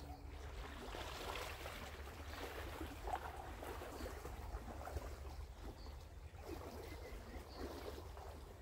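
Small stream running and trickling, with a low wind rumble on the microphone and a few faint high chirps.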